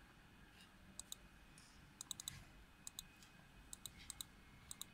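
Laptop keyboard keys being pressed: a dozen or so faint, sharp clicks, mostly in quick pairs, starting about a second in, as numbers are typed into the lathe's control software.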